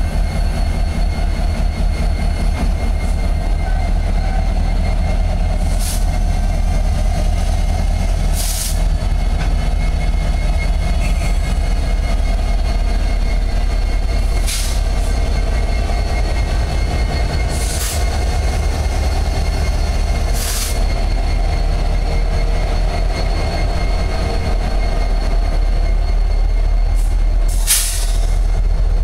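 Canadian National freight train's EMD SD70M-2 diesel locomotives rolling slowly past at close range, engines running with a deep steady rumble under a steady high whine. Brief high wheel screeches cut in about six times, the loudest near the end.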